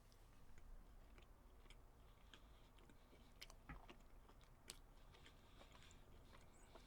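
Faint chewing of a cheeseburger, with scattered soft mouth clicks.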